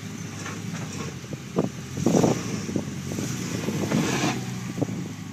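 Land Rover engine running steadily at low revs, with irregular knocks and scraping noises over it, loudest about two seconds in and again around four seconds.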